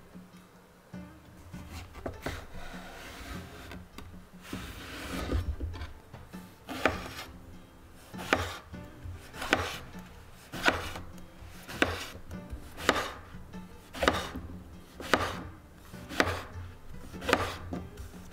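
Chef's knife cutting an eggplant on a cutting board. In the first few seconds come two longer, drawn-out strokes through the flesh. After that come steady slices about once a second, each ending in a crisp knock of the blade on the board.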